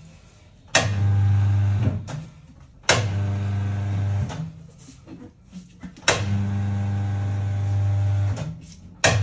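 Electric turntable motor of a tyre-changing machine running in three short bursts, each starting with a sharp clunk and then a steady hum, as the wheel is turned to work a stiff motorcycle tyre onto the rim. A fourth burst starts near the end.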